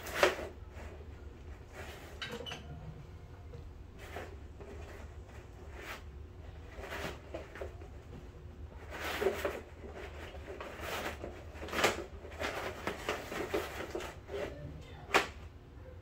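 Handling noises as a flexible black strip is fitted around the base of a floor buffer to form a splash-guard skirt: irregular taps, knocks and rustling, with a few sharper knocks spread through.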